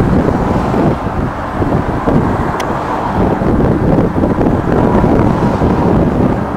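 Wind buffeting the microphone over the noise of road traffic passing close by.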